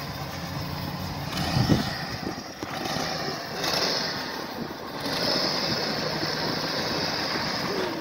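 Off-road 4x4's engine running under load as it crawls a rocky trial section, with a louder surge about a second and a half in. A steady hiss joins about five seconds in.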